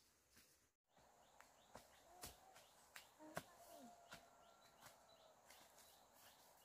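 Faint footsteps of sandals on a dry, leafy forest path: soft scuffs and clicks every half second or so. A few faint bird calls sound in the background.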